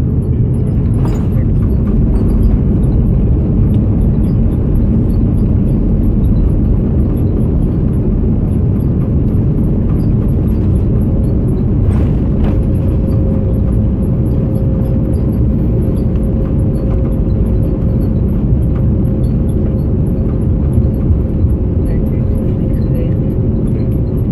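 Loud, steady cabin rumble inside an Airbus A330-200 airliner, heard from a window seat. About halfway through a short click sounds, and a steady mid-pitched hum then holds under the rumble.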